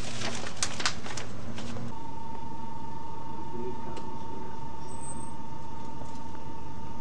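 Steady background hiss with a few light clicks and rustles in the first two seconds. Then a steady high-pitched whine starts and holds on.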